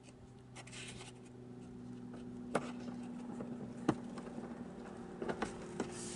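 Fingers rubbing against a mesh sun-shade and a plastic clip being pushed into the headliner edge beneath a car's glass roof. There are sharp clicks about two and a half and four seconds in, and a few smaller clicks near the end, over a steady low hum.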